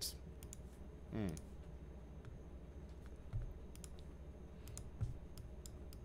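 Scattered light clicks at a computer while the page is scrolled, with a couple of soft thumps and a brief low voice sound about a second in.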